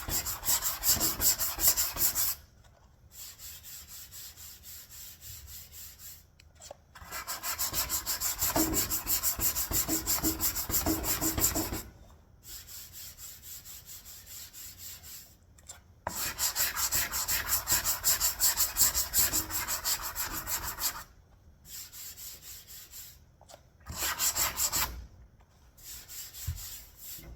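Body filler (bog) on a car panel being sanded, with quick, even back-and-forth rasping strokes. The sanding comes in several spells a few seconds long, with quieter rubbing between them.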